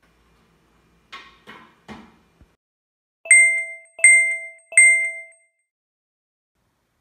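Subscribe-button animation sound effect: three soft clicks, then three bright bell-like dings about three-quarters of a second apart, each ringing briefly and fading.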